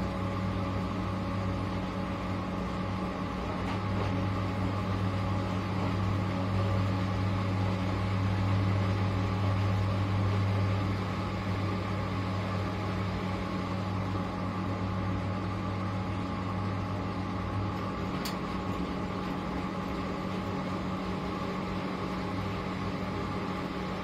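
V-Zug Adora 4 washing machine (early-1970s model 049) running a wash, its motor humming steadily as the drum turns the laundry slowly. The hum swells for a few seconds near the middle, then eases, and there is one short tick near the end.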